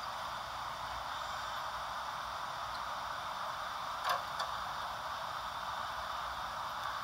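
Steady hiss of a camcorder tape playing back, with a sharp click about four seconds in and a fainter one just after.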